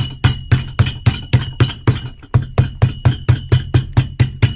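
Cobbler's hammer striking the edge of a newly stitched leather sole in quick, even blows, about three to four a second, hammering down the stitches to close the gap over the threads.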